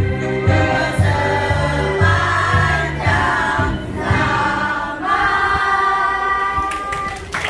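A group of voices singing over a backing track with a steady beat. The beat drops out about two-thirds of the way through, the voices hold a long final note, and the song ends just before the close.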